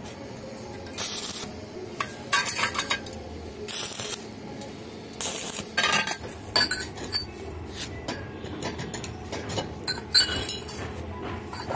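Polished stainless steel railing tube and elbow being handled on a tile floor: irregular metallic clinks and knocks, with a few short scrapes as the pieces are slid together.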